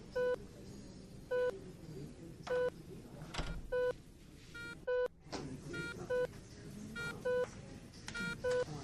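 Short electronic beeps from hospital equipment, about one every second or so, alternating between a lower and a higher tone, over a low background hum of the ward.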